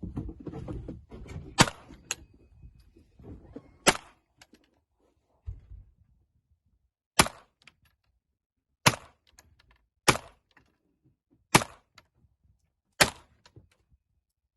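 Browning Challenger .22 LR semi-automatic pistol fired in single shots, about seven in all: two spaced a couple of seconds apart early on, then a steady string of about one shot every second and a half. There is handling noise before the first shot and a dull thump between shots.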